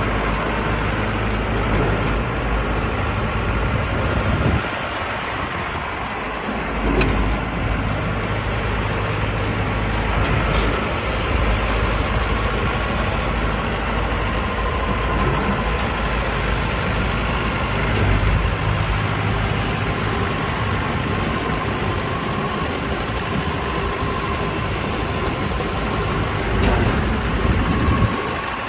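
Crawler rice combine harvester's engine running steadily, with a thin mechanical whine above the drone; the low engine note drops away briefly about five seconds in, then returns.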